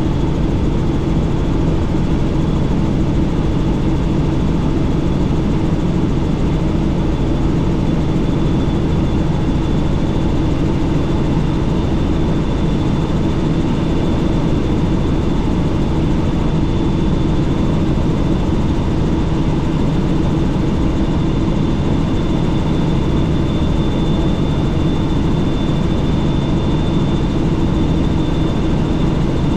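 Helicopter in flight heard from inside the cabin with the doors off: a steady, loud drone of engine and rotor, with a thin high whine over it and rushing air.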